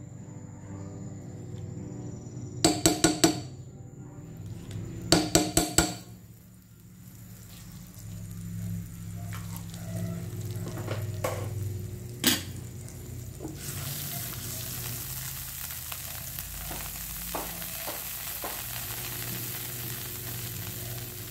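Butter melting in a hot frying pan: a faint hiss that builds into a steady sizzle about two-thirds of the way through. Near the start there are two short clusters of rapid, loud pulses, and there is a single sharp knock about midway.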